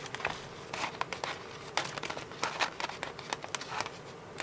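Paper rustling and crinkling as a sheet of glued book paper is handled and shifted by hand, with scattered light ticks and taps.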